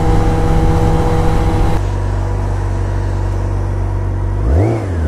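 Campagna T-Rex three-wheeler's motorcycle engine running at road speed through its Akrapovič exhaust, a steady drone. Near the end the pitch rises and falls briefly as the trike revs past alongside.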